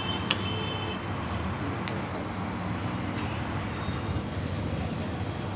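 Steady street traffic noise, with a few short sharp clicks and a brief high tone near the start.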